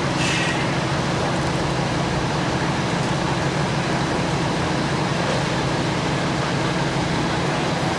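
Steady low rumble and hiss with a low hum, of the kind an engine or traffic makes, and a brief faint high chirp just after the start.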